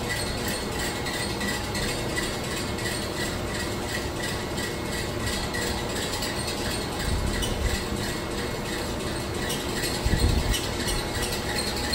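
Steady running noise of lab machinery, with a fast, even mechanical ticking and a faint pulsing high tone. Low rumbles come in about seven seconds in and again about ten seconds in.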